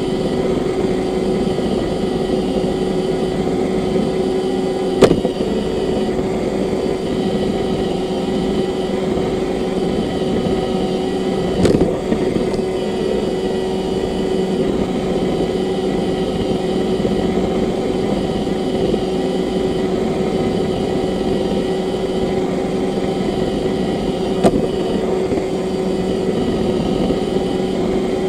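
Roomba robot vacuum running, a steady motor hum with a held whine. Three short sharp knocks cut through it: one about five seconds in, one near the middle and one near the end.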